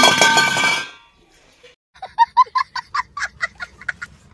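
A loud music sting rings out and fades within the first second. After a short silence, a young boy laughs hysterically in rapid, high-pitched bursts, about five a second.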